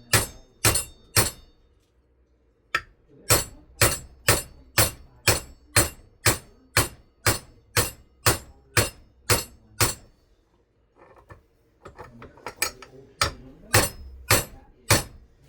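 Hammer blows on the metal of a ceiling fan motor, sharp ringing strikes about two a second. They come in steady runs broken by two short pauses, and the last run is quicker and less even.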